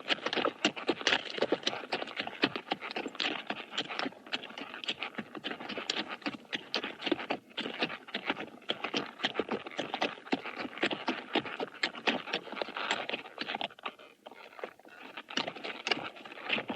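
A horse walking at a steady pace, its hooves clip-clopping in a continuous run of sharp hoof falls.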